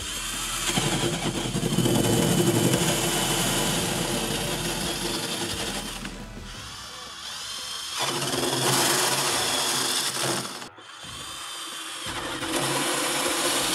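Cordless drill driver spinning a 25 mm flat wood bit through plasterboard under gentle pressure. It runs in several bursts, easing off around six seconds in, stopping briefly near eleven seconds, then starting again.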